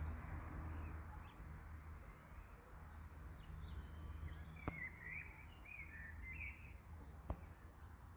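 Songbirds chirping and singing: quick high chirps throughout, with a lower warbling phrase near the middle. Two sharp clicks over a steady low rumble.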